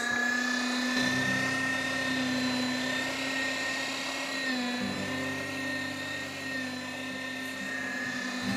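Electric meat grinder with a sausage-stuffing tube running steadily under load, pushing pork-and-beef mince into hog casing. Its motor gives a steady whine.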